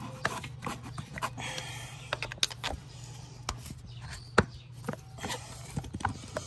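Flat-head screwdriver scraping and clicking against an aluminum thermostat housing as it is worked under a rubber coolant hose stuck to the housing, to pry the hose loose. Irregular sharp clicks and scrapes, the loudest about four and a half seconds in.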